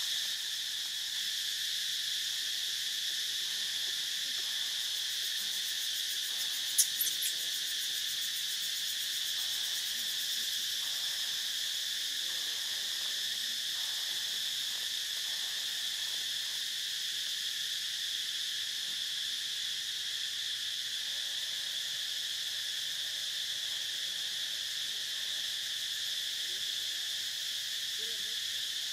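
Steady insect chorus, an unbroken high-pitched buzzing and trilling in several layers. About seven seconds in comes a quick run of three sharp clicks.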